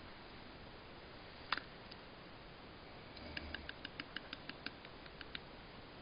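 A single sharp click, then a quick run of about a dozen small mouth clicks, roughly five a second for a little over two seconds, over steady hiss.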